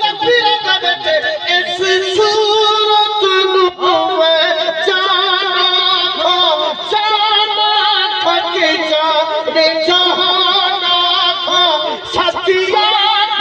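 A man singing a naat, an Urdu/Punjabi devotional hymn, through a public-address microphone, with long held notes that waver in pitch.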